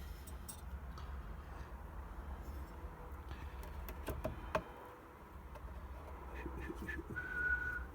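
Faint scattered clicks and knocks of small parts being handled, with a short high squeak near the end, over a low steady hum.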